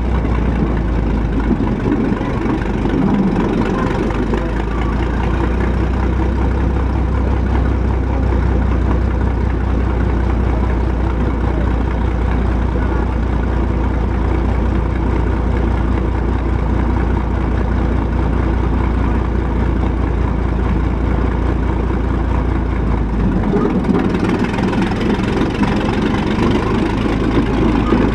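1917 Holt 120 crawler tractor's engine running steadily, held a bit fast to work its new, stiff tracks. Its low note changes about a second and a half in and again near the end.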